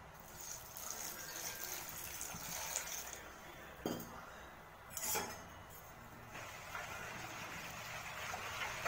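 Milk poured from a steel pan into a plastic bowl of powdered jaggery, then two sharp clinks about a second apart midway, and a spoon stirring the milky mixture near the end.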